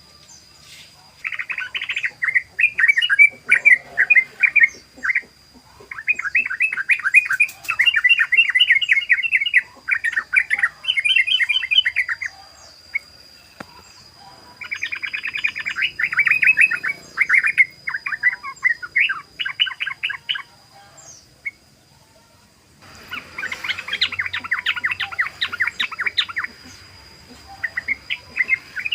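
Yellow-vented bulbul (trucukan) singing in its 'ropel' style: repeated phrases of fast, bubbling chattering notes, each a second or few long, with short pauses between. A faint steady high whine runs underneath.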